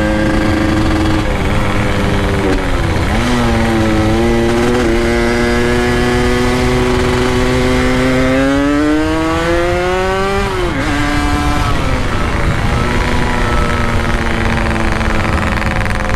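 Two-stroke motorcycle engines running on the move, among them a Yamaha RX-King. One engine holds a steady note while another's pitch dips, then climbs slowly for several seconds as it accelerates, and falls sharply about ten seconds in.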